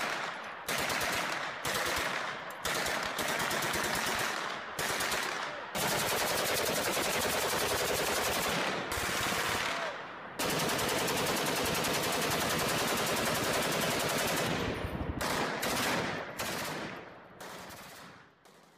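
Automatic gunfire in bursts of rapid shots: a run of short bursts, then two long unbroken bursts in the middle, tailing off near the end.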